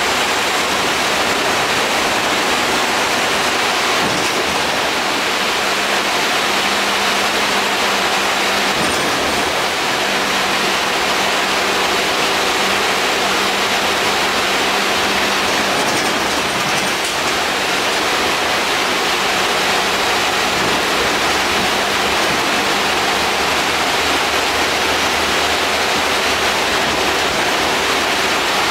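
Steady rushing hiss inside the lower deck of an Alexander Dennis Enviro 400 double-decker bus on the move: the air conditioning is rather noisy and blows over the engine and road noise. A faint low drone joins in for a stretch in the middle.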